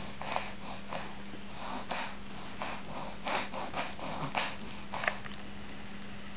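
A six-month-old baby's short breathy huffs and mouth noises, a quick irregular series of them, while she handles a mesh feeder of watermelon.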